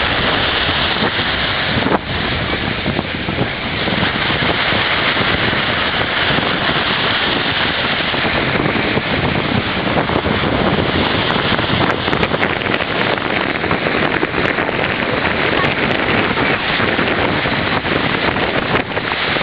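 Wind blowing hard across the microphone, mixed with surf washing onto the beach: a loud, steady rushing noise.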